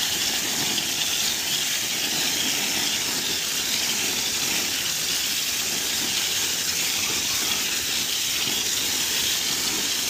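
Water running full force from an outdoor hose spigot onto a plastic mini split air filter and splashing onto the grass, as the filter is rinsed clean from its back side: a steady hiss.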